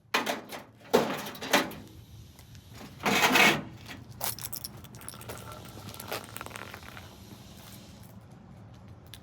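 Metal clattering and knocking from an old microwave oven being handled: a couple of sharp knocks, a louder rattling clatter lasting about half a second, then lighter scattered clinks.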